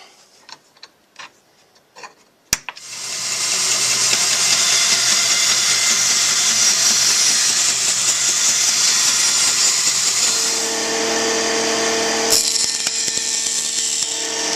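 A few light knocks and clicks, then an electric power tool switches on with a sharp click about two and a half seconds in and runs steadily. A little after ten seconds its sound changes and a steady hum joins it.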